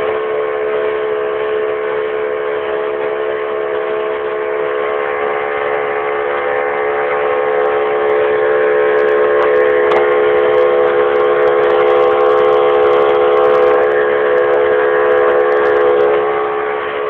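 Motorboat engine running at a steady speed, a constant droning tone that grows somewhat louder through the middle and eases off near the end.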